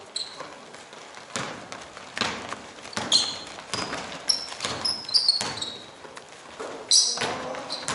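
Basketball bouncing on an indoor court floor, a thud roughly every second, with several short high squeaks of sneakers on the floor in between.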